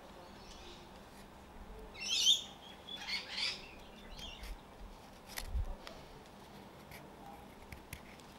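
A bird calling in a few short warbling phrases, loudest about two seconds in, with faint clicks of a carving knife paring dry wood through the second half.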